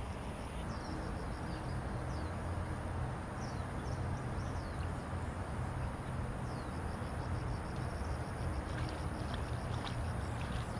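Steady low outdoor rumble with short, falling bird chirps scattered through the first part and a few faint ticks near the end.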